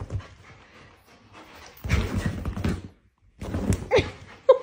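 A pomsky's zoomies: thuds and scrambling of paws on the floor, rug and furniture as the dog tears around the room, in two bouts with a sharp knock near the end.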